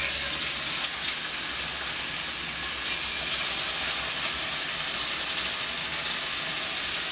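Boneless pork chops sizzling in a frying pan of hot olive oil as they are laid in, a steady frying hiss.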